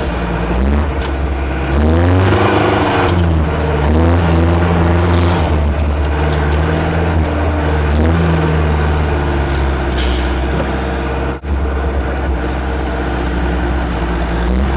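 Turbocharged Mahindra MDI diesel engine of a modified Mahindra CJ500 jeep running under way, its pitch rising and falling with the revs. A short hiss comes twice, about five and ten seconds in.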